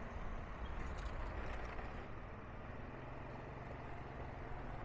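Steady low engine rumble and road noise of a vehicle driving along a street, with a steadier low hum settling in about halfway through.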